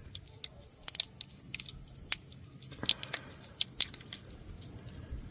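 Scattered light clicks and taps of hands working on a car's wiring harness, handling wires and their plastic connectors, with a few clusters of quick ticks.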